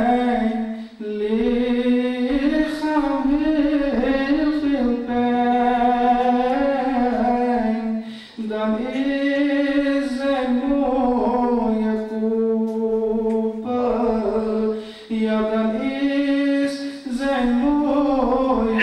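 A solo man singing a Dutch-language naat (Islamic devotional song) into a microphone, in long held, ornamented phrases, with short breaths between them.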